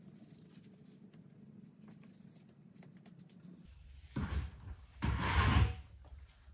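Handling noise of welding gear: two short rustling, knocking bursts about four and five seconds in, the second louder, over a faint low hum.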